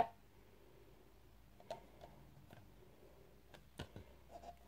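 Hands handling a plastic water bottle with a flip-top cap: one sharp click at the start, then a few faint scattered clicks and taps.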